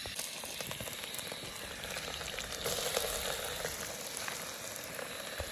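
Food sizzling and crackling steadily in hot oil in a pot on a portable gas-canister camping stove.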